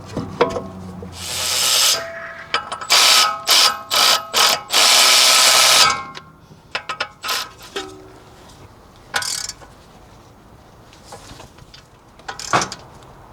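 Power tool running in several short bursts and then one longer run about five seconds in, as the front brake caliper and pads are bolted back on. Light metal clinks and clicks follow.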